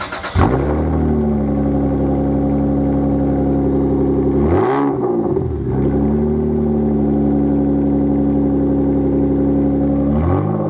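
Naturally aspirated 1994 Toyota Supra straight-six (2JZ-GE) heard through its loud 3-inch cat-back exhaust. It starts up about half a second in, settles to a steady idle, and is revved once briefly mid-way and again near the end.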